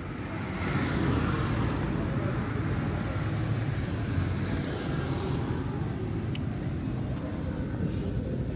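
Road traffic noise: a steady engine rumble with tyre hiss from vehicles on the highway, swelling about a second in.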